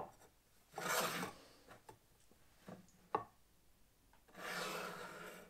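Wood scraping and rubbing against wood, twice, with a single light click between: the sander's wooden motor bracket being shifted on its wooden base as thin shims are slipped under it.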